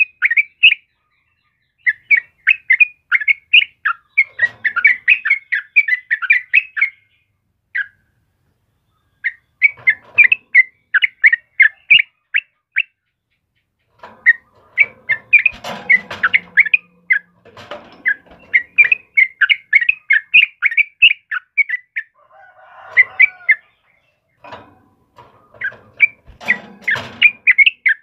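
Yellow-vented bulbul (trucukan) singing: runs of quick, bubbly chattering notes in bursts of a few seconds, broken by short silent pauses.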